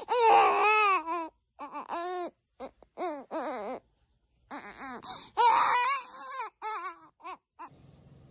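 A newborn baby, about 50 days old, crying on waking. It comes as a string of cries, loudest at the start, with a short pause about four seconds in, then a loud cry again, and it stops shortly before the end.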